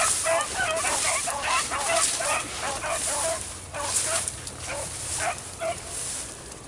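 A pack of beagles baying on a rabbit's trail: quick, overlapping yipping cries, thick at first and thinning out over the last few seconds.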